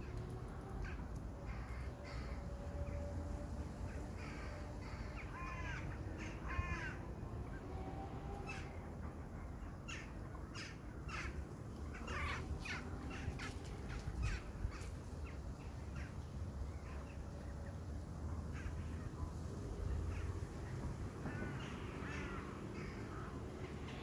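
Crows cawing, with several calls a few seconds in, a quick run of many short calls through the middle, and more caws near the end, over a steady low background rumble.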